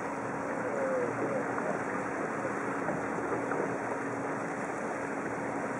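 A boat's motor running steadily underway, a constant low hum under the rush of water and wind.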